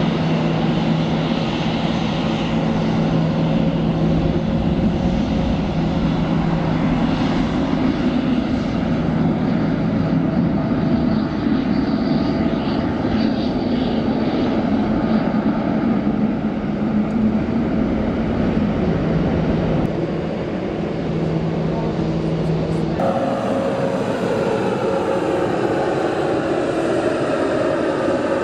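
Jet airliner engines running loudly close by, a steady roar with held tones. About three-quarters of the way through, the sound cuts abruptly to a different engine tone.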